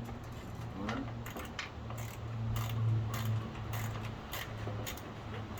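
Irregular metallic clicks and clinks of hand tools and small parts being handled during reassembly, over a steady low hum.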